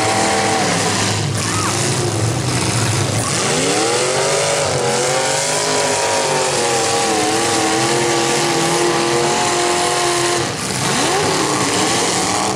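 Demolition derby car engines running hard over a steady din, one engine revving up about three and a half seconds in and held at high revs with small wobbles, then dropping off near ten seconds.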